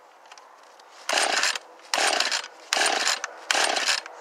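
Recoil starter of a cold Husqvarna 445 two-stroke chainsaw pulled four times in quick succession, each pull a short rasping whirr of the rope and the engine turning over without catching. It is a cold start at about minus 20 °C.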